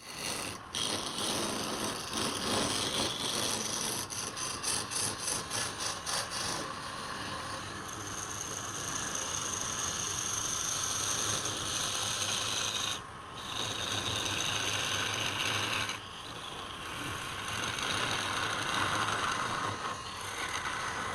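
Wood turning on a lathe: a cutting tool scraping and shaving wood as it spins, with a stretch of quick rhythmic pulses about four a second, about four seconds in, and brief breaks in the cut about 13 and 16 seconds in.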